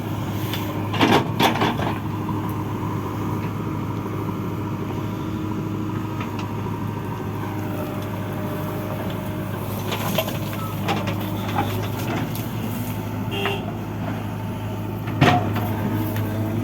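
Heavy diesel machinery engine running steadily, with a few sharp metal clanks and knocks: a pair about a second in and the loudest near the end.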